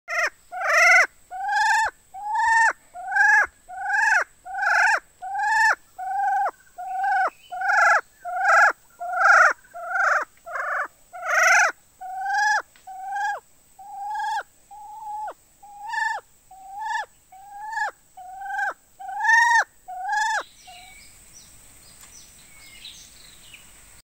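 A forest partridge (puyuh hutan) calling at close range: a loud, even series of about two dozen identical short calls, a little over one a second, each ending in a quick downward sweep. The calls stop about 20 seconds in.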